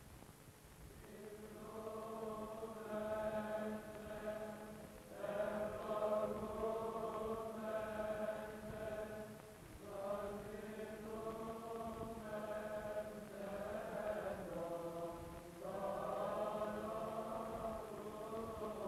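Orthodox Byzantine chant: voices sing a slow melody in long phrases over a steady held drone note, the ison.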